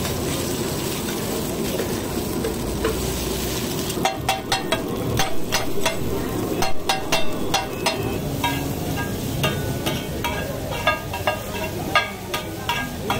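Aloo tikki patties sizzling in oil on a large flat griddle. From about four seconds in, two metal spatulas strike and scrape the griddle over and over in sharp ringing clinks as the patties are chopped and mashed.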